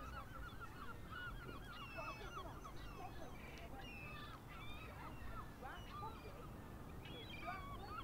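A flock of birds calling, many short honking calls overlapping all the way through, over a steady low rumble.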